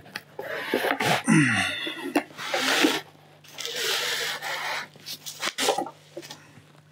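Cardboard box and bubble-wrap packaging rustling and sliding as a long LED aquarium light bar is pulled out and unwrapped: two longer rustles, about two and four seconds in, with a few short knocks around them.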